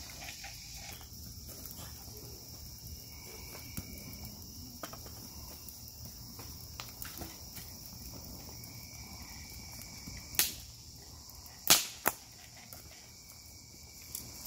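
Wood fire crackling, with scattered small clicks and three sharp, loud pops late on, the last two close together, over a steady high hum of insects.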